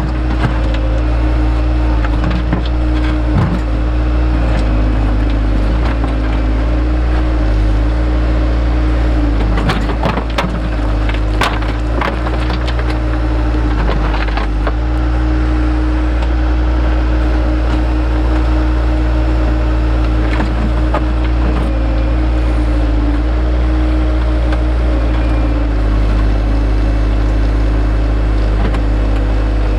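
Engine of a heavy digging machine running steadily, with scattered sharp knocks and scrapes of rock being dug out, most of them in a cluster about ten to fourteen seconds in.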